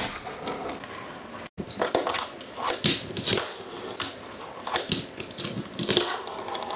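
Fingerboard tricks on a tabletop: the small board's wheels rolling and scraping on the surface, with sharp clacks each time the board pops and lands, about eight times. There is a short dropout about a second and a half in.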